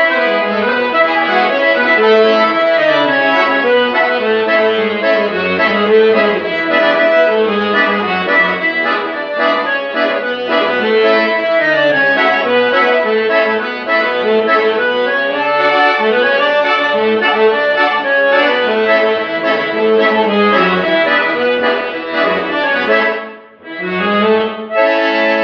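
Accordion playing a lively tune, melody over moving bass runs. Near the end it breaks off for a moment, then settles into a held chord.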